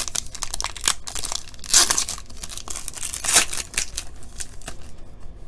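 Panini Court Kings trading-card pack's foil wrapper being torn open and crinkled by hand: a run of crackling rips, loudest about two seconds in and again past the three-second mark, dying away near the end.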